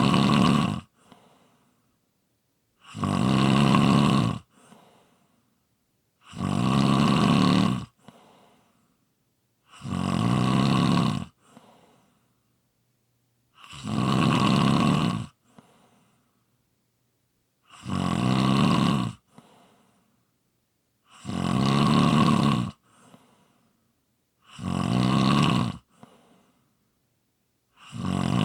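A person snoring in a steady rhythm, one loud rasping snore about every three and a half seconds, each followed by a brief faint puff.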